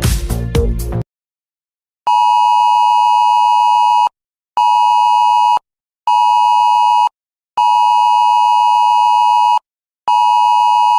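Music cuts off about a second in. After a short silence an emergency alert attention tone begins: a harsh, steady two-pitch tone switched on and off in a long-short-short rhythm, two seconds on, then two one-second tones, with half-second gaps, and repeating. This is the cadence of the Wireless Emergency Alert attention signal, built on the 853 and 960 Hz tones.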